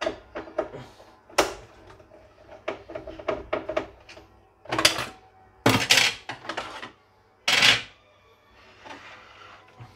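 Clicks, taps and clatter of plastic and metal parts being handled on a portable embroidery machine under repair, with louder knocks and scrapes about five, six and seven and a half seconds in.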